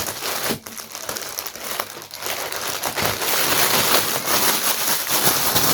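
Packaging crinkling and rustling as it is handled and opened, getting louder about halfway through.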